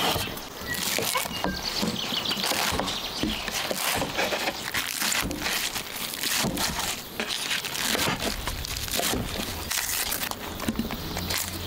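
Beef bulgogi cooking on a cauldron lid over a wood fire: steady sizzling with many irregular crackles and clicks.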